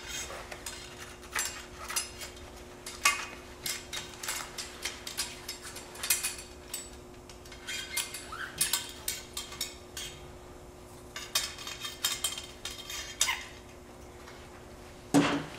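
Metal cleaning rod with a cotton patch swabbed through a Charles Daly semi-auto shotgun barrel, giving irregular light clicks and scrapes of rod against barrel, with a louder knock near the end.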